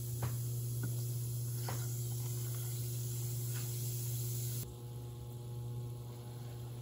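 Carbonated cider hissing as it heats toward a simmer in a pot, over a steady low hum, with a few light taps of a silicone spatula stirring it. The hum drops and changes about two-thirds of the way through.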